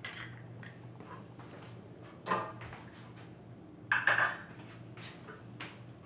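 Kitchen clatter: a few short knocks of dishes and utensils being handled, one about two seconds in and a louder cluster around four seconds, over a steady low hum.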